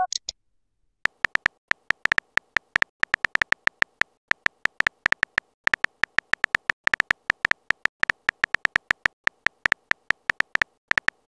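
Chat-app keyboard typing sound effect: a rapid, irregular run of short clicks, several a second, as a text message is typed out letter by letter.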